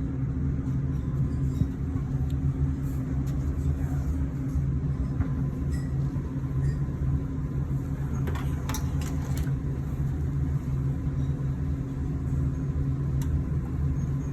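Steady low machine hum, with a few light clicks and ticks about eight to nine seconds in.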